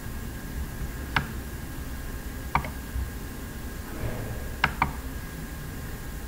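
Computer mouse clicking: a single click about a second in, another a second and a half later, then two quick clicks near the end. A steady low hum of room and microphone noise runs underneath.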